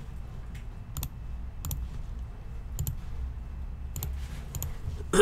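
Six or so sharp, single clicks at uneven intervals, over a faint low steady hum.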